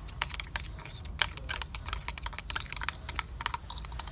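Rapid, irregular light clicks and taps, several a second, over a low steady hum.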